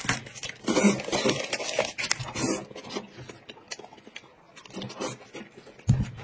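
Close-up eating sounds: chewing and slurping of food taken up with chopsticks, heard as a run of short, irregular smacks and clicks.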